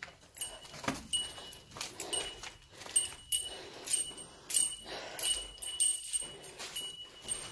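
Footsteps crunching over broken tiles and rubble, about two steps a second, with a faint gritty jingle on each step.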